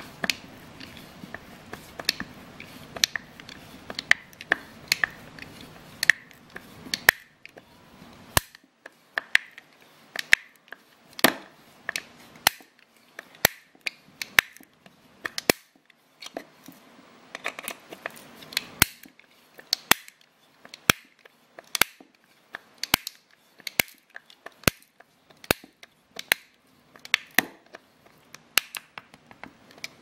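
Sharp clicks and snaps, roughly one a second, from a Leatherman Bond multi-tool being worked by hand.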